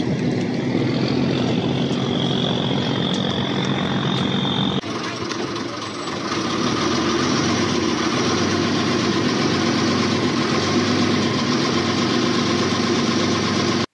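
Small river ferry's engine running steadily, with an abrupt change in the sound about five seconds in.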